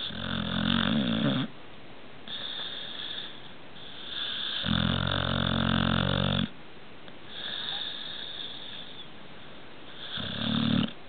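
A sleeping pet snoring: three loud snores with softer breaths between them, the last one short.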